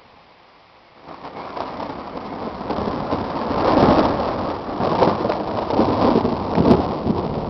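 A close thunderclap breaking about a second in, then a long, loud roll of thunder that swells several times.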